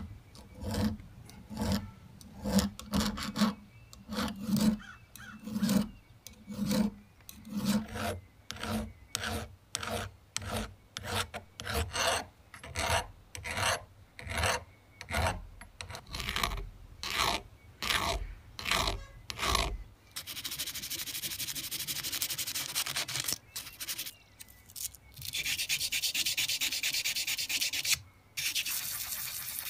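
Hand file rasping back and forth inside the jaw of a steel open-end wrench clamped in a vise, deburring and truing the jaw faces, in even strokes about one and a half a second. About two-thirds of the way through the strokes stop and give way to a steady scratchy hiss.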